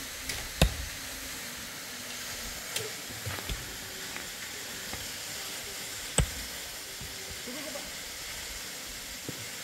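Pickaxe striking stony ground: two sharp blows about five and a half seconds apart, with a few lighter knocks between, over a steady hiss.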